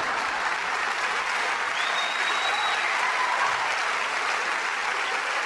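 Theatre audience applauding steadily after a punchline. About two seconds in, a single high whistle rises over the clapping.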